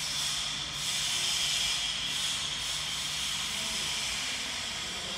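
A steady hiss that starts abruptly and holds level.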